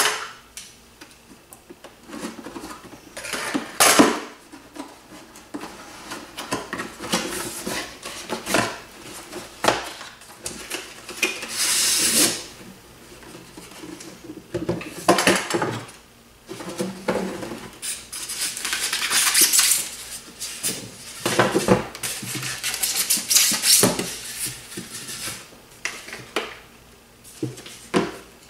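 Drone parts and packaging being handled: hard plastic pieces clattering and knocking as they are lifted out and set down, with bursts of packaging rustle in between.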